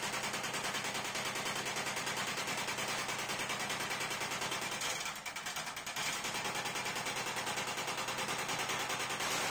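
Workshop machine for finishing brass plates running, with a rapid, even, machine-gun-like rattle. The rattle dips briefly about five seconds in, then carries on.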